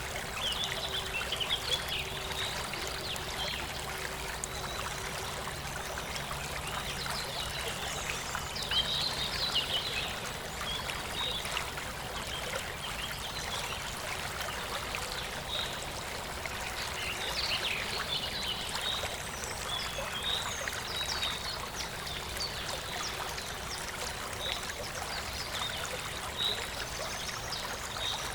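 Steady rush of running water, like a small stream, with birds chirping and twittering over it throughout.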